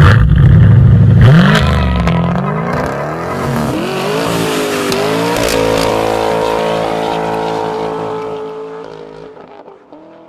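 Nissan 370Z's V6 engine through a true dual performance exhaust, loud at first, then revving up in a rising pitch with a dip and climb around the middle like a gear change. It then holds a steady note and fades away as the car pulls off.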